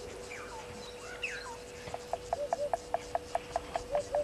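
Bush ambience: insects chirping and a few bird-like gliding notes, then from about two seconds in a rapid, even run of short repeated calls, about six or seven a second.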